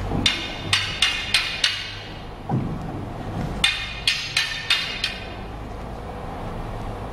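Wooden sword (bokken) and wooden staff clacking together in two quick runs of five sharp strikes, with a single duller thump between the runs.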